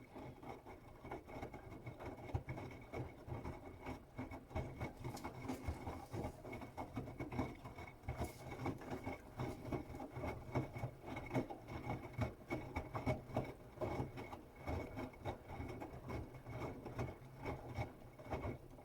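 Bosch Serie 8 WAW32590 front-loading washing machine turning its drum in the wash phase: wet laundry tumbling and sloshing with irregular soft thuds over a steady motor whine. The run starts and stops abruptly, one drum-turning interval between pauses.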